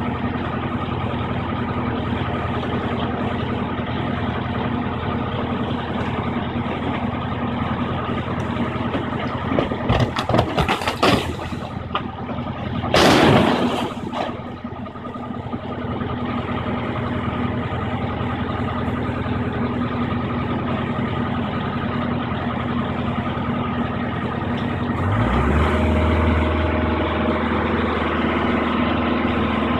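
Diesel engine of a long-reach demolition excavator running steadily. About ten seconds in there is a clatter of debris hitting the ground, then a loud crash of demolition debris a few seconds later. The engine note grows louder near the end.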